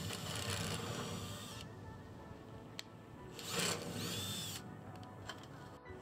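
A power drill running a drill-tap bit into metal in short spells, with a louder burst about three and a half seconds in followed by a brief high squeal, over background music.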